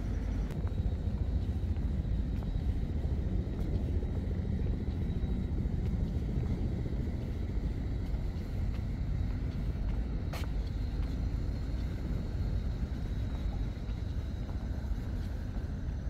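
Steady low rumble of outdoor urban ambience, with one brief sharp high sound about ten seconds in.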